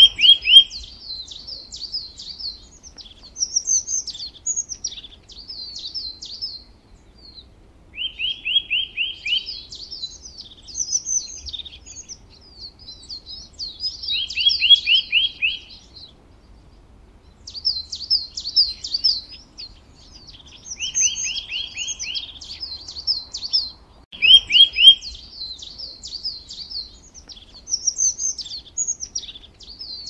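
Several small songbirds chirping and singing together in a dense, continuous chorus of high notes. A short, fast trill of about a second breaks in five times, a few seconds apart.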